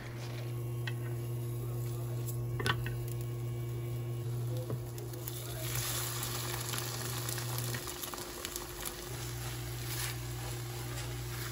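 Kimchi fried rice sizzling in a frying pan, the sizzle growing stronger about halfway through, with a few sharp clicks of a utensil against the pan. A steady low hum runs underneath and drops out briefly about two-thirds of the way in.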